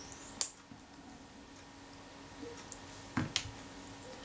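A few faint, sharp metal clicks from tweezers and small camera parts being handled: one about half a second in, then two in quick succession near the end.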